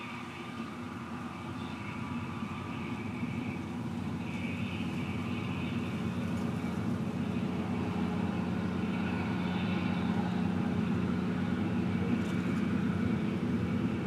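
Combine harvester working the corn, a steady engine and machinery drone that grows gradually louder as it comes closer.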